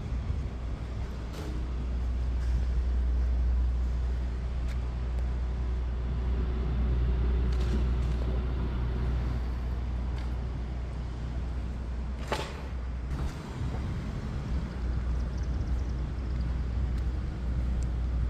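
Outdoor street ambience: a steady low rumble that swells and eases, with one sharp click about twelve seconds in.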